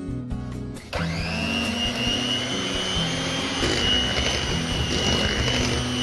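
Handheld electric mixer switched on about a second in, its motor running steadily with a high whine as the beaters churn cake batter in a glass bowl.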